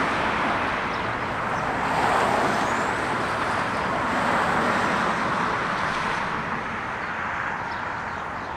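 Steady road traffic noise, an even rushing hiss that turns duller about six seconds in.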